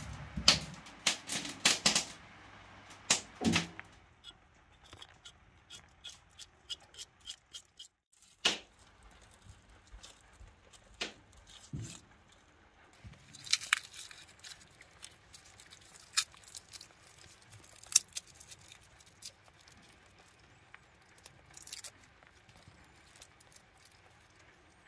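Hands preparing ingredients up close: a string of sharp clicks, snaps and crackles. They are loudest in the first few seconds, then come as a run of quick, even clicks, then scattered ones, ending with papery garlic skins being peeled.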